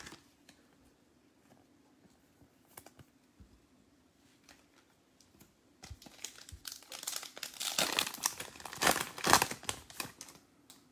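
Foil wrapper of a Panini Mosaic football card pack crinkling and tearing as it is ripped open by hand. After a quiet start with a few light taps, the crackling begins about halfway through and is loudest near the end.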